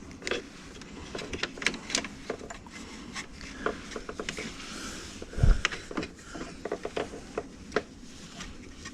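Wiring and plastic parts being handled and rubbed: scattered sharp clicks and rustling, with one dull knock about halfway through.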